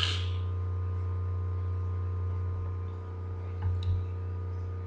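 Steady low electrical hum with a few faint steady higher tones over it. A short puff of hiss comes right at the start, and a couple of soft clicks about three and a half seconds in.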